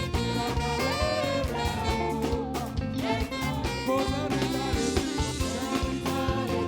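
Upbeat gospel praise music with a steady drum beat and a bending lead melody, played by a church praise band.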